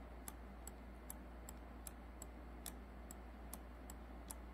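Faint, steady ticking at about two and a half clicks a second from the electronic drive-by-wire throttle body of a 2003 GMC truck, clicking with the key on and the engine off.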